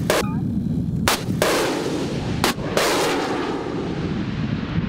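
Strela-2 shoulder-fired anti-aircraft missiles launching: sharp bangs in close pairs, three times within about three seconds, followed by a rushing rocket noise that fades away.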